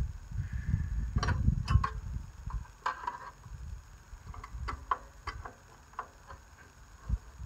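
A dozen or so scattered, irregular sharp clicks and light taps over an uneven low rumble, from hand work on the parts of a riding lawn mower.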